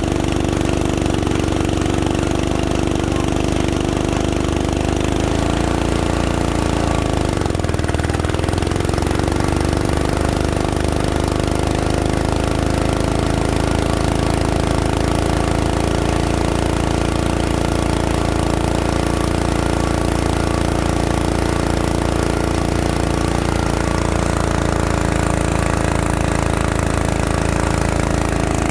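Engine of a core drilling machine running steadily; its pitch sags briefly about seven seconds in and then comes back up, as when the engine takes a load.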